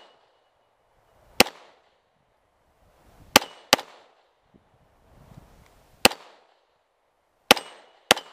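Six pistol shots, unevenly spaced, with two quick pairs among them. A few are followed by a brief high ring of steel plates being hit.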